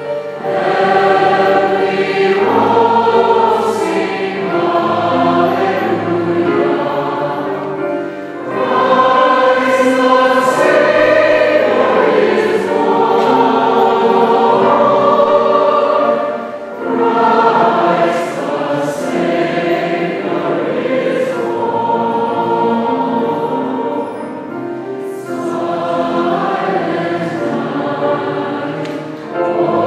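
Mixed choir of men and women singing a Christmas hymn with piano accompaniment, in long sustained phrases separated by short breaths.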